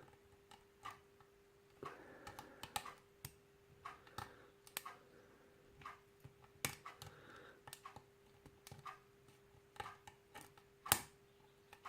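Hook pick and tension wrench working a small wafer lock: faint, irregular metallic clicks and taps as the pick moves the wafers, with a sharper click about seven seconds in and another near eleven seconds. A faint steady hum sits underneath.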